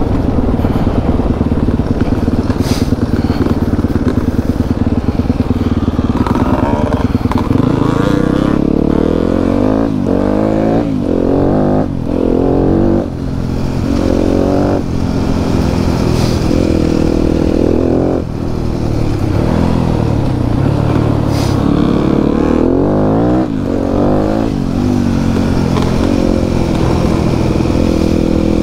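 Enduro motorcycle engine running, fairly steady at first, then revved up and down over and over from about eight seconds in, its pitch rising and falling with the throttle on a trail ride. A couple of short sharp clacks stand out near the start and later on.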